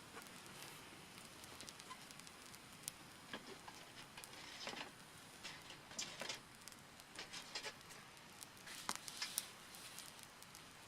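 Quiet small wood fire crackling, with irregular sharp snaps and a few brief rustles.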